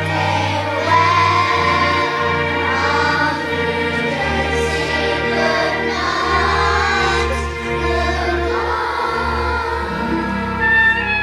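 A group of children singing together over a recorded musical accompaniment with a steady bass line; the singing stops near the end while the accompaniment carries on.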